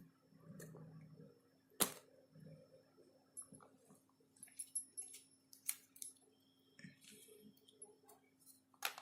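Faint handling sounds from an iPhone box and its accessory packaging being opened: scattered clicks, taps and light rustles, with one sharp click about two seconds in and more clicks near the end.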